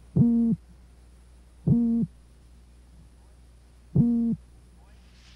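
Male toadfish's courtship call: three short hoots at one steady pitch, each about a third of a second long. This is the 'boatwhistle' a male toadfish sounds to attract a female, unlike his territorial drumming.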